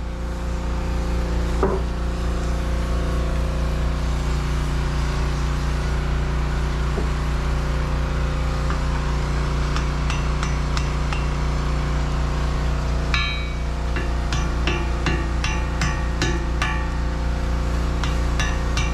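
Hammer striking metal with a ringing clink, as the crew work a boat propeller loose from its shaft: a couple of single blows, then a quick run of strikes, two to three a second, in the last six seconds. A steady low hum runs underneath.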